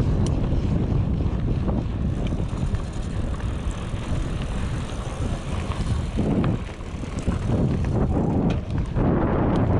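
Mountain bike riding downhill on a trail: wind buffeting the microphone over a steady rumble of tyres on dirt, with scattered clicks and rattles from the bike.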